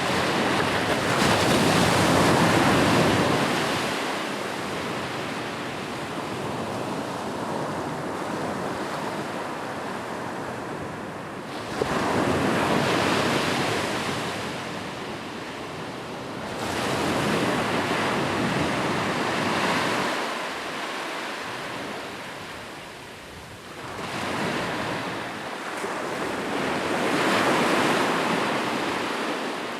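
Ocean waves breaking on a shore, the surf swelling and easing off in slow surges several seconds apart, with one sharper crash about twelve seconds in.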